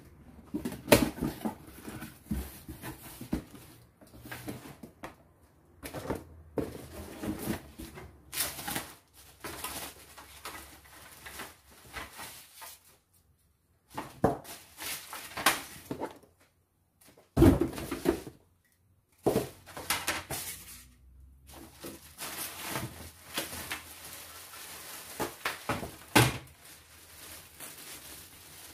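Unpacking sounds: a cardboard box being opened, clear plastic wrapping crinkling and rustling, and knocks and clatter as the parts of a folding laptop table are handled, in irregular bursts with short quiet gaps.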